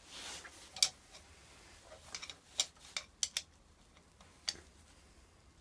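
Steel screwdriver clicking against the screws and metal body of a 49cc mini dirt bike carburettor as its screws are worked loose: about ten sharp, scattered clicks, after a brief soft rustle at the start.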